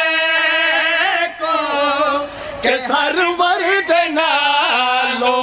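Men singing a devotional couplet together into microphones, unaccompanied. A long held note opens, the sound dips briefly about two and a half seconds in, then the wavering sung phrases go on.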